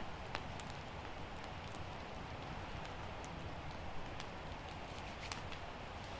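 Campfire of wet wood burning, with scattered sharp pops and crackles over a steady low hiss.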